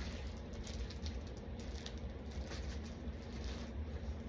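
Faint scattered light clicks and rustles of things being handled, over a steady low hum.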